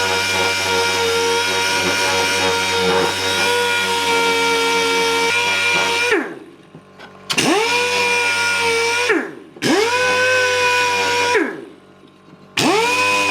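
Electric sander running steadily while rounding over wooden edges, then switched off and on three times, its motor winding down and spinning back up each time.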